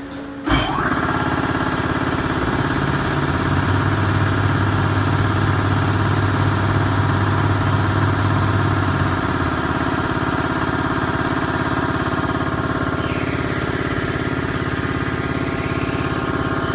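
DMG Mori NLX1500SY CNC lathe running as it machines a fountain pen cap: a steady machine hum with several steady tones, starting suddenly about half a second in. The strongest low hum drops away about nine seconds in while the rest runs on.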